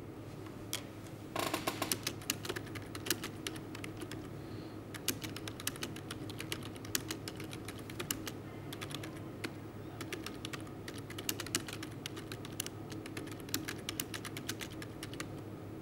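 Typing on a computer keyboard: rapid, irregular key clicks starting about a second and a half in, over a low steady hum.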